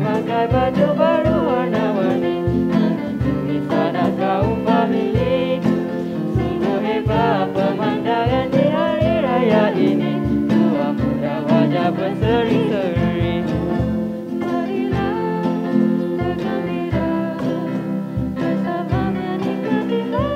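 Live Malay Hari Raya song: vocals sung into microphones over acoustic guitar, keyboard and cajon, with a steady beat and wavering, ornamented vocal lines.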